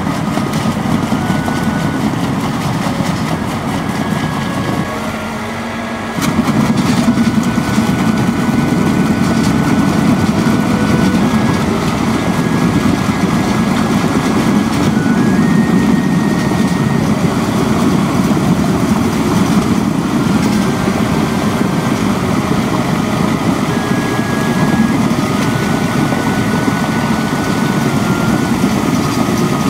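Engine of an amphibious reed-clearing craft running steadily as it works through the reeds. It drops briefly about five seconds in, then runs on a little louder.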